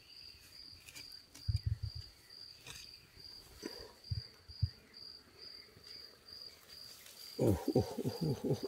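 Crickets chirping steadily, about two or three high chirps a second. There are a few dull knocks as the dough-sealed lid of the clay pot is worked loose, and a brief voice near the end.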